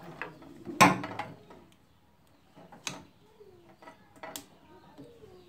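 Several sharp metallic clicks and knocks, the loudest about a second in, from a spanner and hands working on fittings behind a tractor's plastic dashboard panel.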